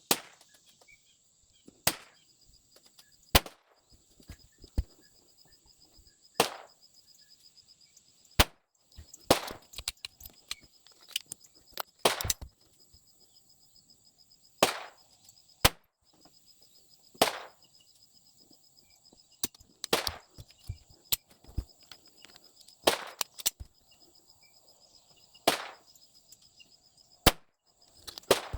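Shots from a .22 rimfire S&W Victory pistol fired at a steady pace, about one every two to three seconds, each a sharp crack with a short echo. Fainter pops fall between them.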